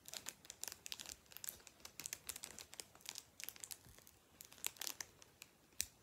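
Foil wrapper of a Pokémon booster pack crinkling in quick, irregular crackles as it is worked at and pulled, a pack that will not tear open.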